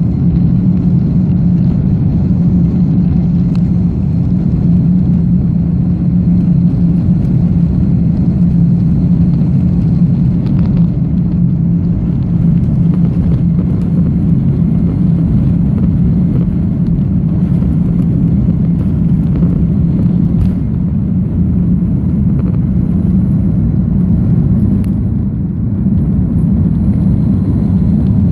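Airbus A310 jet engines and airflow heard inside the passenger cabin as a loud, steady low rumble during take-off or the climb.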